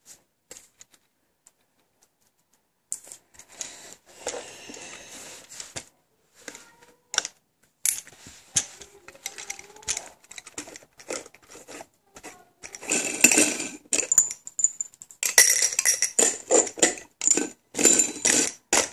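A small Jelly Belly jelly bean dispenser with a glass globe being handled: scattered clicks and knocks at first, then from about 13 seconds in, dense rattling and clinking as the machine is turned and its contents shift.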